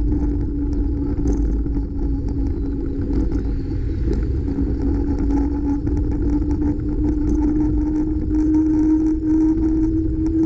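Steady wind rumble and road noise picked up by a bicycle-mounted camera while riding, with a constant hum that rises slightly in pitch near the end.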